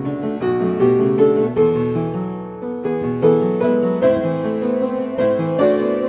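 Upright piano played in a slow, flowing piece: chords and a melody struck every half second or so and left ringing, softening briefly a couple of seconds in before the next phrase.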